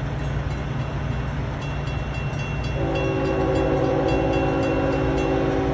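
Diesel freight locomotive air horn sounding one long chord, starting about three seconds in, over the low rumble of the train. A grade-crossing warning bell dings steadily and quickly throughout.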